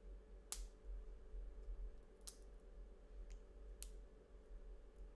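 Thin laser-cut acrylic rings clicking as they are twisted in opposite directions to break them free of the small tabs joining them: three sharp clicks spaced a second and a half to two seconds apart, with a fainter one between the last two, over a faint steady hum.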